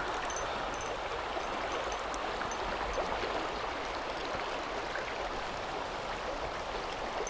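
River water running with a steady rush.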